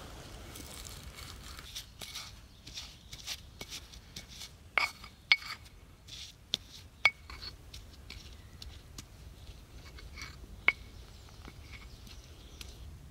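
Stone pestle knocking and grinding in a stone mortar, crushing fresh greens: a run of soft knocks, with a few sharp, ringing clinks of stone on stone in the middle.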